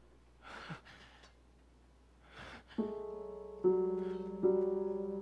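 Piano accompaniment to a show tune: after a near-quiet pause holding two soft breaths, a chord enters about three seconds in and is restruck roughly once a second, each strike fading.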